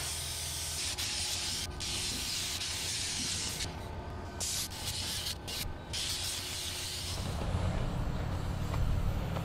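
Handheld air spray gun hissing as paint is sprayed, the hiss stopping for short moments several times. A low rumble comes in near the end.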